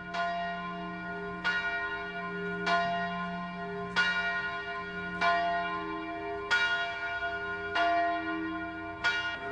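A bell tolling at an even pace: eight strikes about a second and a quarter apart, each ringing on until the next one lands.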